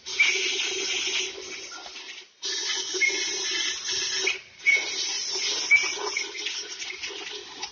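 Pneumatic wrench running down engine main bearing cap bolts: a steady air hiss with a hum under it, in three long runs with short breaks about two and four and a half seconds in.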